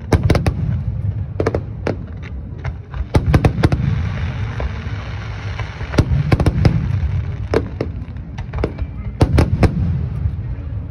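Fireworks bursting in irregular clusters of sharp bangs, at the start and again around one and a half, three, six and nine seconds in, over a steady low rumble.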